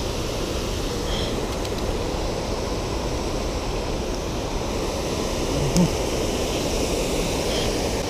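Steady rushing background noise, with a few faint clicks.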